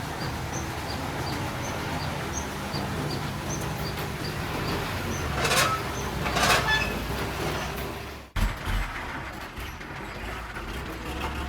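Heavy diesel earthmoving machinery running steadily at a constant pace, with two short hissing bursts around the middle. The sound breaks off abruptly for an instant a little after.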